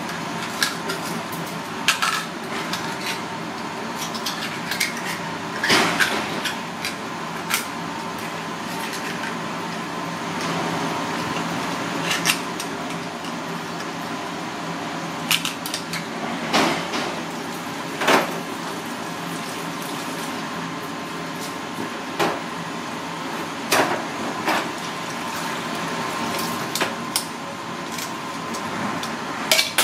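A small knife clicking and scraping against a clam's hard shell as it is pried open and the meat cut free, with sharp irregular clicks every few seconds. Tap water runs steadily into a stainless steel sink underneath.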